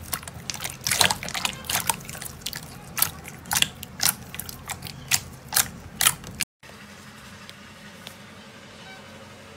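Clear jelly slime pressed and squeezed by hand, giving irregular wet clicks and pops, several a second. About six and a half seconds in it cuts off abruptly, and a much quieter steady hiss with a few faint ticks follows as a finger pokes a thick, soft slime.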